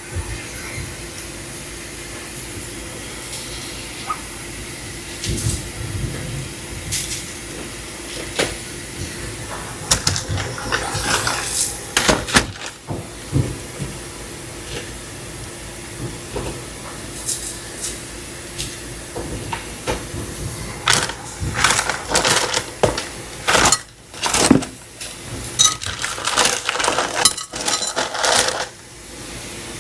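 Irregular clicks, taps and rustles of spice containers being handled while spices are shaken onto raw chicken, with the handling densest in the second half, over a steady hum.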